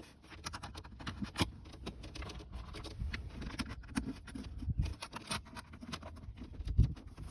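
Small steel hardware being handled: flange nuts being fitted onto quarter-twenty bolts through a metal bracket and plastic console, with irregular light clicks and scrapes and a few louder knocks.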